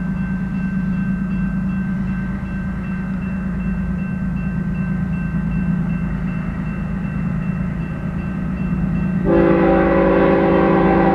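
Railroad crossing bell ringing steadily over a low rumble. About nine seconds in, the air horn of an approaching freight train's lead locomotive, a GE ES44C4, sounds loudly: a multi-note chord held through the end.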